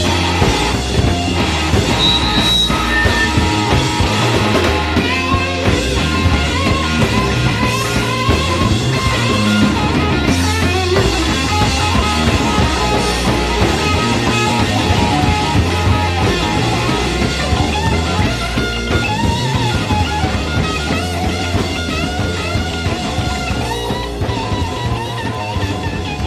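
Instrumental rock music with guitar and drums and no singing, getting slightly quieter near the end.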